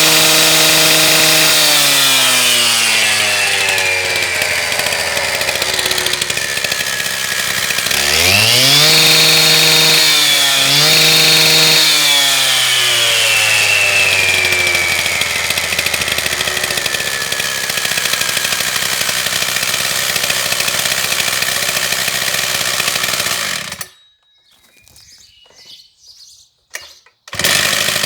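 Husqvarna K760 concrete saw's two-stroke engine running. It slows from high revs, is revved sharply to full speed about a third of the way in and held there with a brief dip, then slowly winds back down to a steady idle. About 24 seconds in it cuts out to near quiet with a few faint knocks, then runs loud again just before the end.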